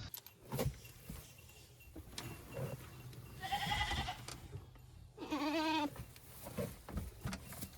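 Goats bleating: two calls, the first higher and steady, the second lower and quavering, with a few faint knocks between them.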